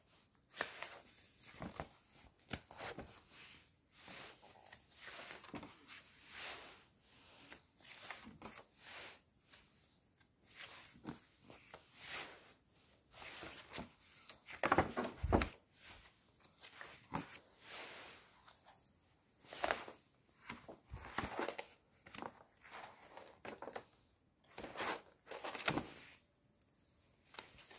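Paper pages of a ring-binder project file being handled and turned: repeated short rustles and flips, with the loudest page turns about halfway through and again near the end.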